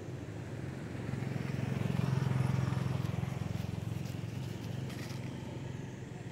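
A motor vehicle's engine passing on a nearby road, its low hum swelling to a peak about two seconds in and then fading away. A couple of light clicks about five seconds in.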